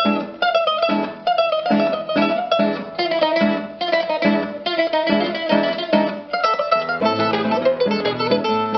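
Background music: an instrumental tune on a plucked string instrument, with a quick run of notes.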